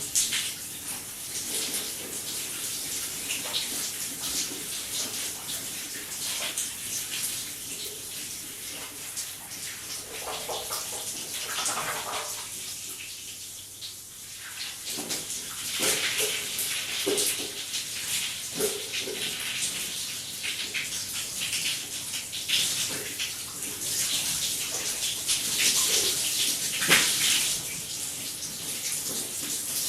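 Shower spray running while a person washes under it, the water splashing irregularly as it hits the body. The spray turns softer and duller a little before halfway, then comes back.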